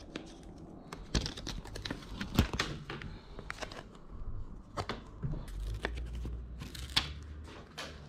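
Backing paper being peeled off a self-adhesive foam deck pad, with paper rustling and crinkling and a few sharp taps as the pad is handled and pressed onto the plastic kayak deck.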